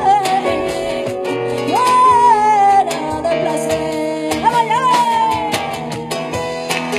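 Live flamenco: a female singer holds long, bending sung notes, one sliding downward near the end, over a plucked flamenco guitar, with sharp percussive hits throughout.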